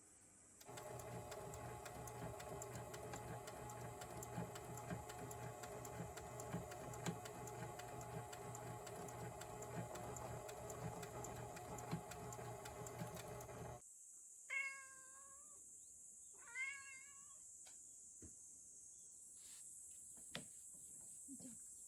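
A sewing machine runs steadily with a quick ticking of needle strokes for about thirteen seconds, then stops suddenly. A cat then meows twice, a few light clicks follow, and a further meow begins near the end.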